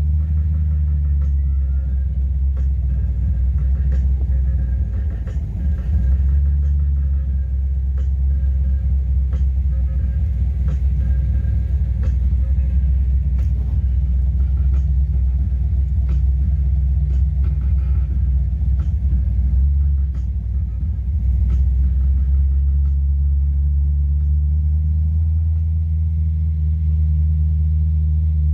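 Classic car's engine rumbling steadily at low speed, heard from inside the cabin, with the engine note dipping briefly twice.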